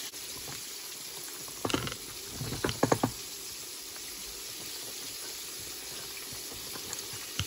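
Floured chicken pieces frying in a pan of oil, a steady sizzle, with a quick run of sharp clicks and knocks about two to three seconds in.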